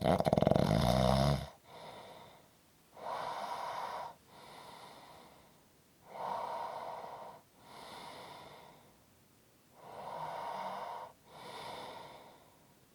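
Snoring: one loud, fluttering snore lasting about a second and a half, then three slow, heavy breaths in and out, each a louder breath followed by a softer one.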